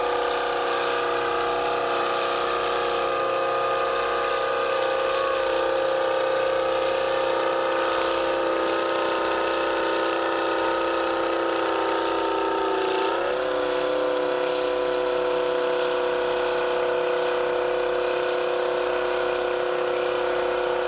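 Tractor engine running steadily under load, its drone dipping in pitch about thirteen seconds in and then holding a little lower.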